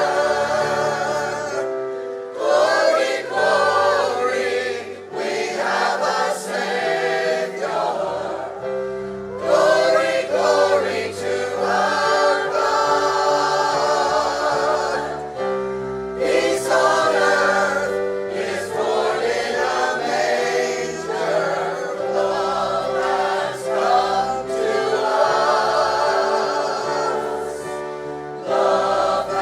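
Church choir singing a Christmas hymn, many voices together over sustained instrumental accompaniment.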